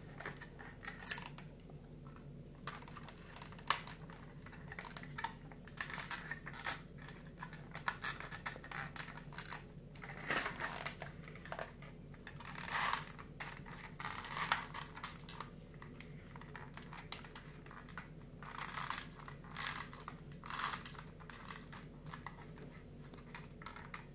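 Cardboard 3D puzzle pieces being handled and fitted together: scattered light clicks and taps with short scraping, rustling strokes as tabs are pushed into slots.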